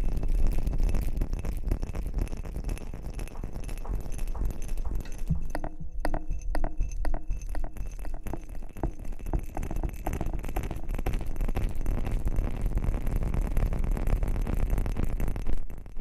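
Close-miked ASMR rustling and scratching against the microphone, a dense, continuous crackle of quick scratchy clicks with a deep rumble of handling underneath, thinning briefly about six seconds in.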